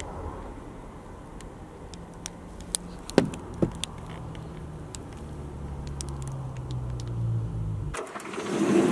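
A motor vehicle's engine running steadily, its pitch rising slightly over the last few seconds, with two sharp knocks a little after three seconds. Near the end the engine hum stops and a louder rustling sound starts.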